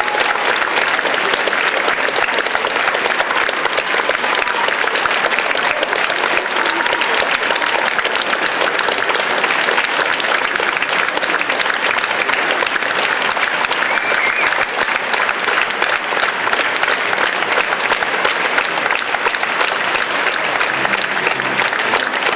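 Theatre audience applauding steadily. Near the end, the orchestra begins to play under the clapping.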